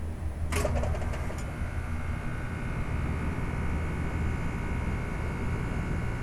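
2005 Carrier Infinity 2-ton heat pump's outdoor unit starting in cool mode after its compressor delay. About half a second in there is a short clatter of clicks, then a steady whine joins the low hum and holds.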